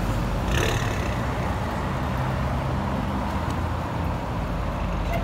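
Ford Mustang 2.3 EcoBoost's turbocharged four-cylinder engine idling steadily, a low even rumble from the exhaust.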